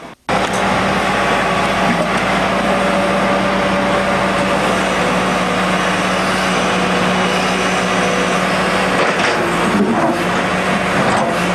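Tracked hydraulic excavator's diesel engine running steadily while it digs, with a steady droning hum. The pitch sags briefly and comes back up near the end.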